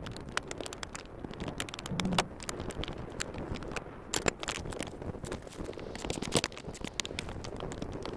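Hand tools clicking and knocking against metal: a wrench working fasteners loose to remove a Jeep YJ's brake booster. The clicks come irregularly, several a second, with a few louder knocks.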